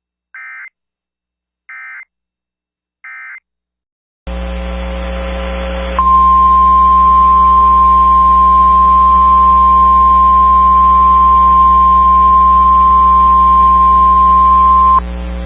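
Emergency Alert System end-of-message data bursts: three short buzzy chirps about a second and a half apart. A low hum then comes in, and about six seconds in the steady NOAA Weather Radio warning alarm tone sounds for about nine seconds, marking the start of the next warning broadcast.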